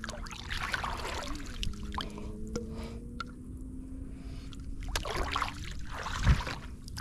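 Shallow river water sloshing and splashing as a baited crab ring net is set down and its line paid out, with a louder splash about six seconds in as the plastic-bottle float drops into the water. A faint steady hum, slowly rising in pitch, runs underneath.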